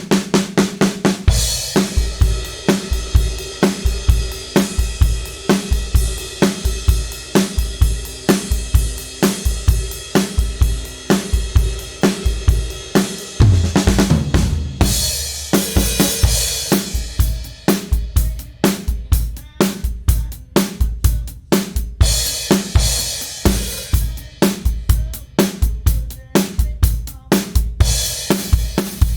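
A drum kit playing a steady beat of bass drum, snare and hi-hat, run through a Behringer T1952 tube compressor/limiter. The kick lands about twice a second. About halfway through there is a fill, and after it the beat thins out, with crash cymbals now and then.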